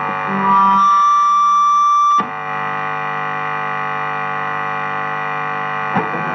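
Blackstar HT-Metal valve distortion pedal on its high-gain Channel 2, squealing and humming with no guitar being played: a loud high whistle for about two seconds, then a steadier buzzing drone with many overtones. The player puts the squeal down to the strings not being held, and calls this howl normal for every unit of this pedal.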